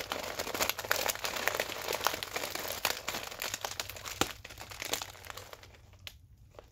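Foil-lined bag of Cape Cod kettle-cooked potato chips being crinkled and squeezed by hand, a dense crackle that thins out and fades near the end.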